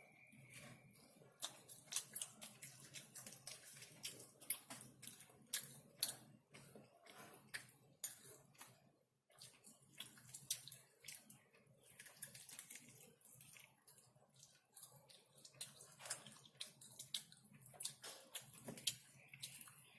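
Close-miked eating of Nando's chicken: wet chewing, with irregular sharp mouth smacks and clicks several times a second and a short pause partway through.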